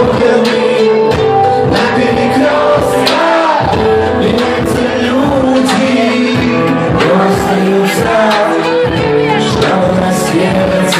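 Live pop performance amplified through a club's PA: a male singer sings into a microphone over a backing track with a steady beat.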